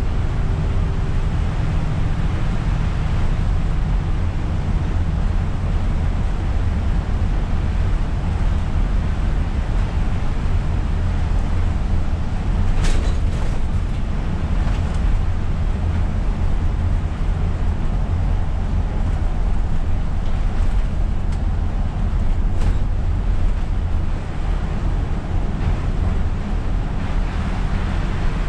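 Isuzu Erga city bus heard from inside the cab while driving on a wet road: steady low engine and road rumble with a hiss of rain and wet tyres. A few short clicks come about halfway through.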